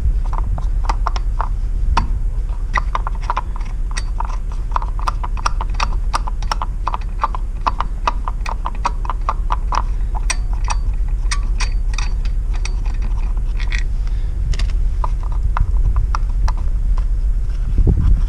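A rapid, irregular run of light clicks and taps, several a second, over a steady low rumble.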